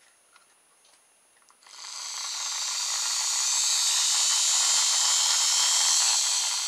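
Small home-assembled kit DC electric motor, its wire coil spinning between fixed magnets, running with a steady high-pitched whir. It starts about a second and a half in and builds up to speed over the next couple of seconds.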